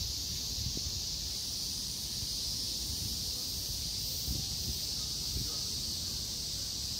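Steady outdoor ambience: an even high-pitched hiss with soft, uneven low rumbles of wind on the microphone, a little stronger a few seconds in.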